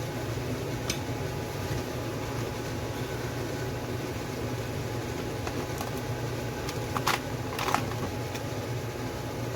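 A steady fan hum, with a few short sharp clinks about a second in and twice near the end.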